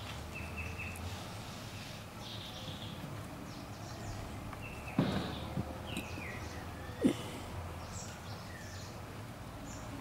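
Outdoor background with scattered short bird-like chirps over a low steady hum, broken by two sudden dull thumps about five and seven seconds in.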